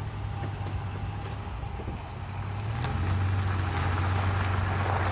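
Car wheel making a steady low drone while driving, with a faint higher tone above it; it gets louder a little past halfway. The owner wonders whether it is a worn wheel bearing.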